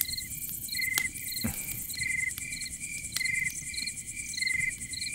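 Crickets chirping in short trills, repeating evenly about every second over a continuous high insect buzz, with a single click and a soft knock between one and two seconds in.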